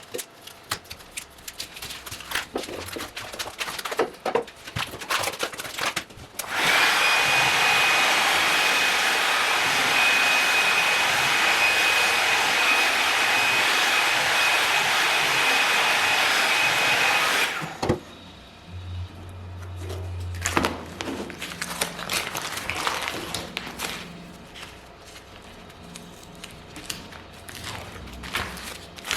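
An electric power tool's motor comes on about six seconds in and runs steadily for about eleven seconds, a loud airy whir with a steady high whine, then cuts off abruptly. Scattered clicks and knocks of handling come before and after.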